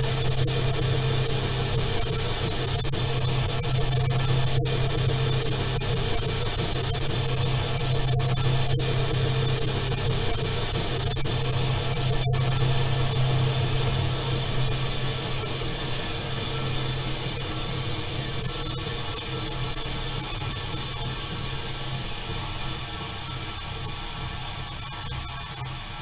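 Band saw running: a steady hum under a strong high hiss, growing gradually quieter over the last ten seconds.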